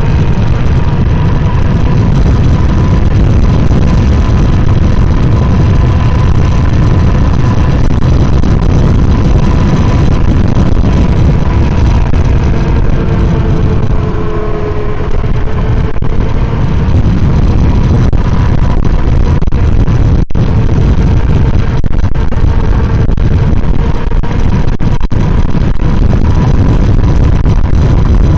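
Heavy wind buffeting the microphone with road noise while riding an electric scooter, and a faint steady whine underneath.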